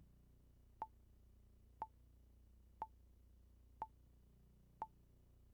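Countdown timer sound effect: five short, high ticking beeps, one each second, over near silence.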